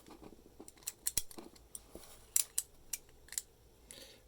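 A US registered postal padlock being worked with its key: a run of irregular, sharp metallic clicks as the key is turned in the plug.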